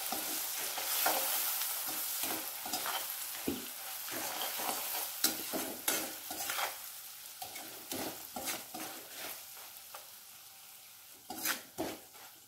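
A metal spoon stirring and scraping elephant-yam pickle in a metal kadai, over the sizzle of hot oil and freshly added vinegar. The sizzle fades away as the pan cools with the flame off, leaving only the spoon's scrapes near the end.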